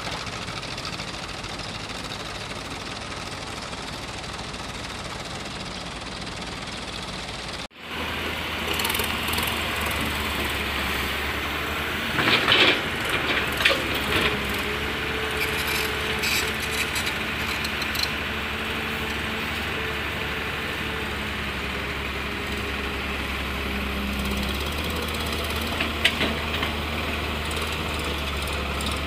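Diesel engines of farm tractors and a tracked excavator running steadily, cut off suddenly about a quarter of the way in and resuming louder. A few seconds later comes a cluster of loud clattering bursts, and one more follows near the end.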